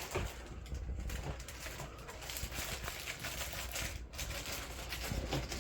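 Irregular rustling and clicking of an RC truck's box packaging being handled.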